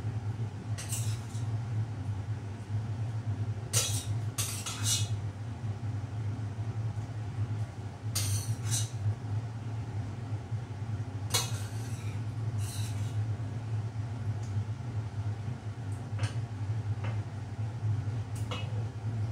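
A metal spoon scraping and clinking against a steel cooking pot as food is spooned out onto a serving dish, a short scrape or clink every few seconds. A steady low hum runs underneath.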